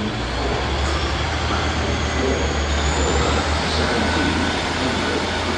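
Class 150 Sprinter diesel multiple unit running close by, its underfloor diesel engines giving a loud, steady low hum. A faint high whine rises briefly about three seconds in.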